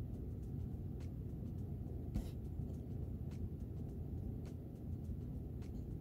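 Steady low background rumble with faint scattered clicks and one sharper tick about two seconds in: light handling taps while a small ZIF connector is being positioned on a laptop trackpad board.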